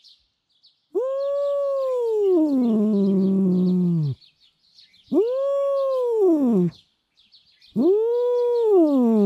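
Female domestic cat giving three long annoyed grumbling calls, the first about a second in. Each rises to a held note and then slides down in pitch. The first and third sink into a low drawn-out moan, and the shorter second one falls away.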